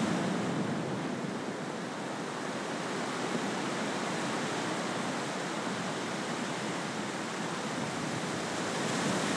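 A steady, even rushing noise with no distinct events, a continuous background bed of the surf or white-noise kind.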